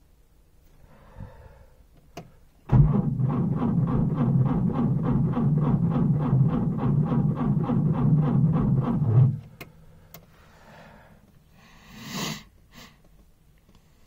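Trabant 601's two-cylinder two-stroke engine turned over by the starter motor for about six and a half seconds, with a steady beat of about four strokes a second. It never fires: a no-start in severe cold. A click comes just before the cranking, and a short noise follows near the end.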